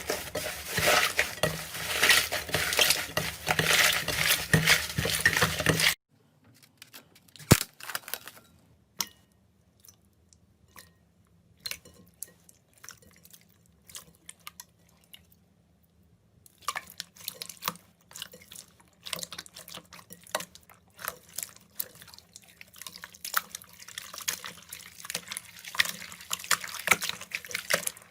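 Slime being squished and worked by hand, making wet clicks, pops and crackles. Dense for the first six seconds, it cuts off suddenly to scattered single clicks, then grows dense again a little past halfway.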